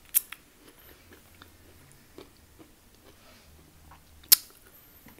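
Close-miked eating sounds: chewing with small wet mouth clicks, lip smacks as fingers are licked just after the start, and a single sharp click about four seconds in.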